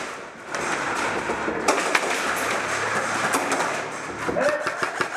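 Airsoft guns firing during an indoor close-quarters game: rapid, irregular runs of sharp clicking shots, with indistinct voices under them.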